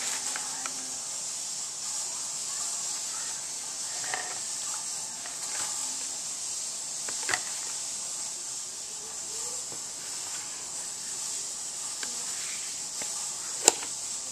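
Light clicks and taps of a pistol being handled in a fabric PDA-style holster, over a steady hiss. A sharp click near the end, the loudest sound, as the holster's magnetic snap flap shuts.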